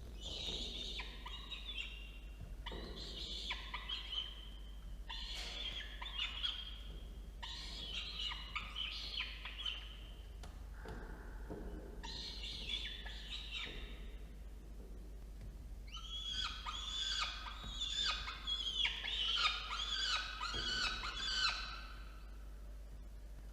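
Peregrine falcon chicks food-begging: a series of high, harsh calls a second or two each, then a longer, louder run of overlapping calls near the end.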